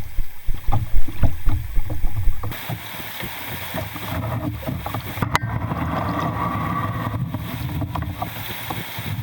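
Canoe on a fast-flowing river: gusty wind buffeting the microphone at first, then a steady rush of moving water, with one sharp knock about five seconds in.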